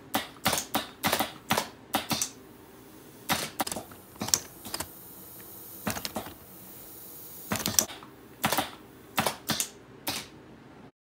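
Pneumatic animatronic's air cylinders and valves firing through a programmed sequence: sharp clacks and short air puffs in irregular clusters, cutting off suddenly near the end.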